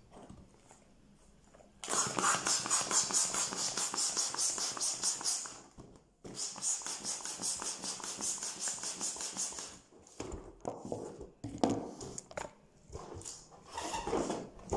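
Hand balloon pump inflating a 12-inch latex balloon: two runs of quick, even air strokes, the first starting about two seconds in and the second after a short pause, followed by irregular rubbing and handling of the rubber balloon.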